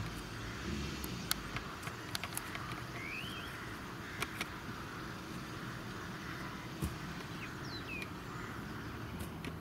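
A vehicle engine running with a steady low hum, with scattered sharp clicks and two short bird calls, the first rising and the second falling.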